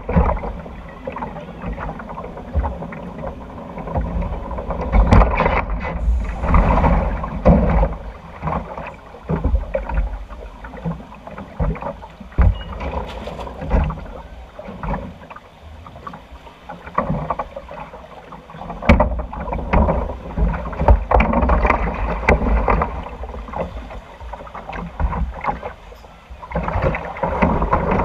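Log flume boat riding along its water channel: rushing, sloshing water in the trough, with irregular low thumps and rumbling.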